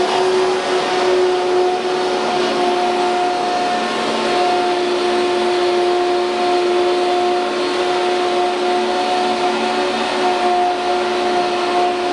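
An ATC CNC router's machinery running steadily: a constant droning tone with its overtone over an even rushing noise, unchanging throughout.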